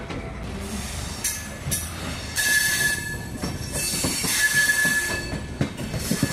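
Moving passenger train running on the rails with a steady rumble and hiss. Its steel wheels give a high, steady squeal twice, about two and a half seconds in and again around four and a half seconds, and a few sharp rail clacks come near the end.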